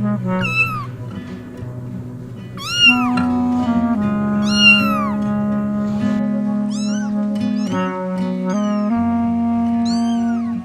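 A cat meowing again and again, about seven separate rise-and-fall meows, over background music with long held notes.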